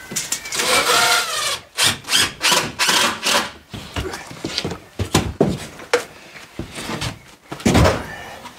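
Tool work on new wooden floor boards, with screws going in: a short whir of a power drill, then a quick run of rough rasping strokes and scattered knocks on the wood, the loudest near the end.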